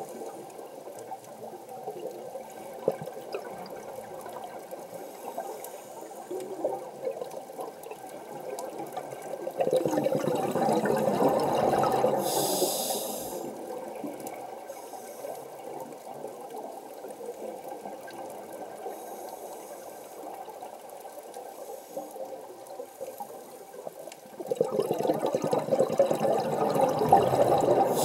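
Scuba diver breathing through a regulator, heard underwater: two long surges of exhaled bubbles, about ten seconds in and again near the end, over a steady underwater rush.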